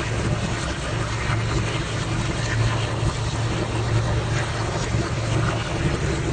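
Heavily processed voice made with a voice-changer app into an "insanity" sound effect: a steady, dense drone with a constant low hum under a flickering, noisy wash.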